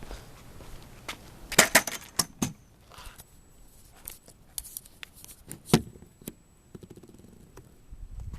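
Scattered knocks, clicks and light metallic clatter of things being handled and moved, with a quick cluster of sharp knocks about two seconds in and one loud knock near six seconds. No engine is running.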